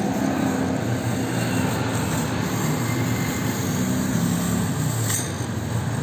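Hermetic refrigerator compressor running with a steady low hum. The compressor had seized and, after an oil change and a start capacitor, is now running normally.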